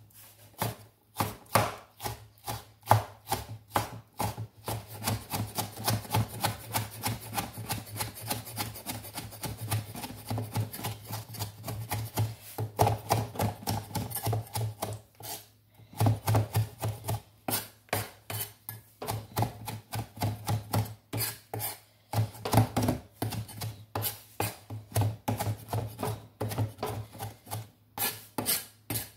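Kitchen knife chopping tomatoes on a wooden cutting board: quick, repeated knocks of the blade on the board, several a second, with short pauses about halfway through and near the end.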